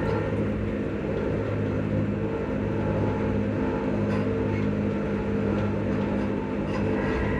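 Traction motors of a ScotRail electric multiple unit humming steadily under way, heard from inside the carriage. Several steady hum tones sit over the rumble of the running gear.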